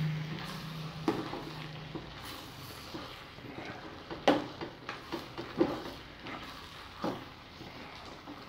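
Plastic ladle stirring a steaming stew in an enamel pot, with irregular knocks and scrapes against the pot's sides over the simmer of the food.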